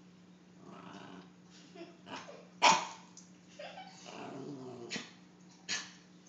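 Small white dog growling and barking: one loud bark about 2.7 seconds in, two shorter barks near the end, and low growls between. A wary reaction from a dog that is afraid of the clown figure in front of it.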